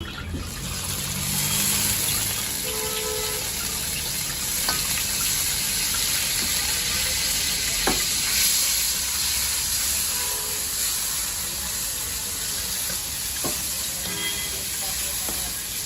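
Food sizzling steadily in hot oil, with a few sharp clicks along the way.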